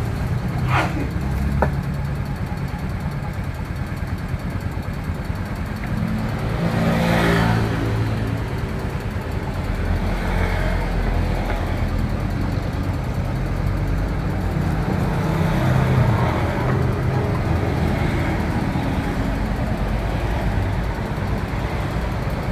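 Motor vehicle engines running with a steady low rumble; one swells louder and rises in pitch as it speeds up about seven seconds in, and another swells near the end.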